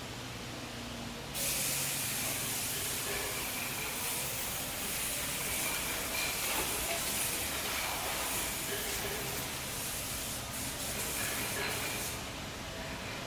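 A steady spraying hiss, like a jet of compressed air, starting abruptly about a second in and cutting off near the end.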